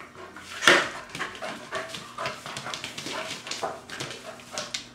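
Standard poodle puppies playing on a hard floor: a run of short clicks, scuffles and knocks, with one louder knock just under a second in.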